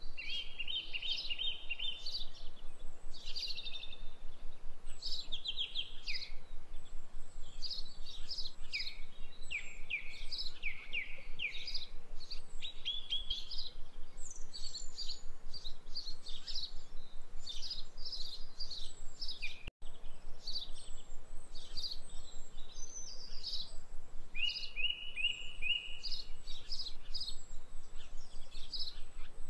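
Birds chirping and singing: a busy, continuous chorus of short chirps, trills and falling whistled notes. It cuts out for an instant about twenty seconds in.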